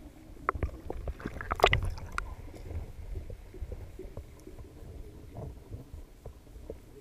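Underwater sound heard through a submerged camera beside a boat's hull: a muffled low rumble of moving water with scattered sharp clicks and knocks, a dense cluster of them about one and a half to two seconds in.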